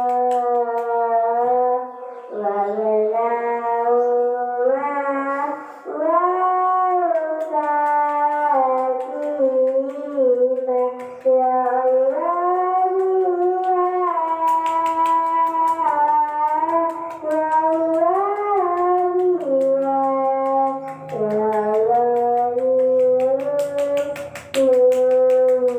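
A single voice chanting in long, melodic held notes that step up and down with ornamented turns, pausing briefly for breath every few seconds.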